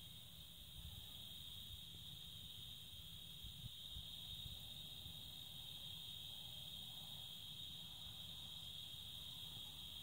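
Insects trilling steadily in one unbroken high-pitched tone, faint, over a low rumble.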